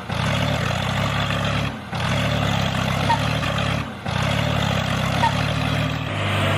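Small motor of a miniature DIY tractor running steadily with a low drone. The sound drops out briefly about two and four seconds in.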